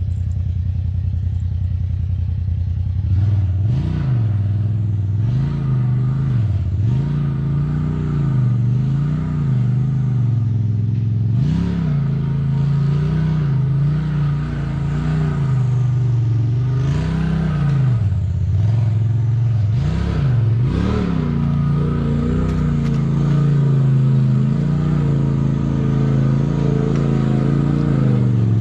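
Polaris RZR side-by-side engine running, swelling and dropping in short throttle blips every second or two as it crawls over rocks, then holding steadier near the end. Scattered knocks and clatter of tires and chassis on the rocks.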